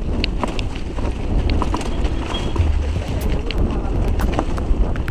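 Mountain bike descending a leaf-covered dirt trail at speed: heavy wind rumble on the microphone over the noise of tyres on dirt and leaves, with scattered sharp clicks and rattles from the bike.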